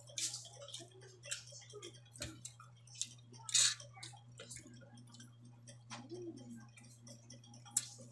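Close-up eating sounds of a person chewing a meal of dried fish and vegetables: irregular wet clicks and smacks of the mouth, with a few louder ones, over a steady low hum.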